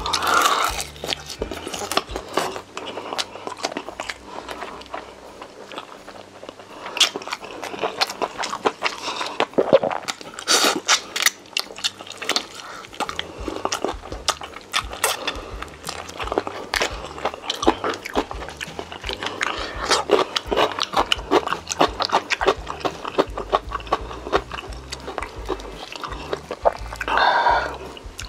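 Close-up crunching and chewing of crispy firewood-roasted chicken and scorched rice crust: many sharp crackling bites with wet chewing between them. Soft background music plays underneath, and a short hum-like vocal sound comes near the end.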